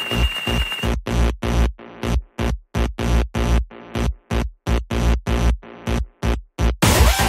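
Electronic dance-style background music with a drum-machine beat. About a second in, it drops to a chopped, pulsing beat about three times a second, and the full track comes back in near the end.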